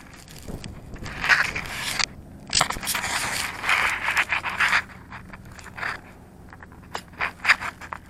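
Handling noise from a Mobius action camera, fingers rubbing and scraping over its body right at the microphone. It comes in irregular rustling bursts, with a few sharp clicks near the end.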